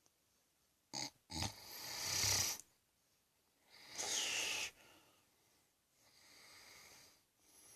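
A man snoring in his sleep: a short snort about a second in, then a loud snore lasting over a second, a second loud breath with a falling whistle, and fainter breaths near the end.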